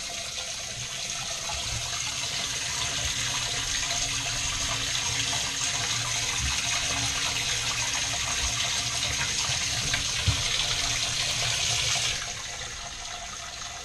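Boat live-well pump running, spraying a steady stream of water into the live well. It cuts off abruptly about twelve seconds in.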